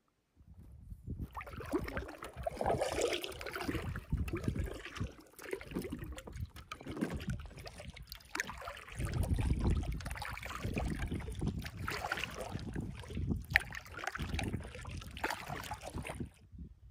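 Paddle strokes through lake water beside an inflatable Alpacka packraft: uneven swells of splashing and dripping over a low rumble, stopping just before the end.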